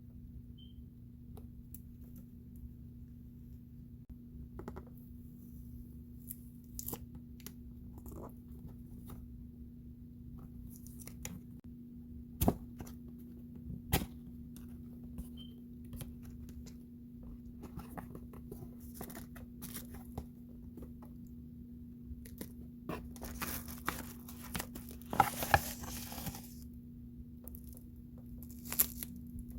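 Packaging being opened by hand: scattered clicks and knocks, two sharp loud clicks near the middle, then a few seconds of paper or plastic tearing and crinkling near the end, over a steady low hum.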